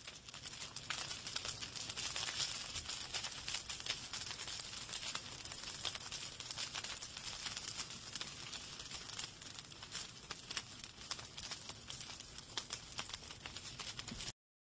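Wood fire crackling in a fireplace: dense, irregular pops and snaps over a soft hiss, starting and stopping abruptly.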